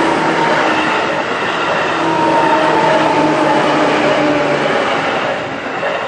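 An electric commuter train passes close by at speed: a loud, steady rush of wheels on rail with a motor hum that drifts slightly in pitch. It eases off near the end as the last car clears the crossing.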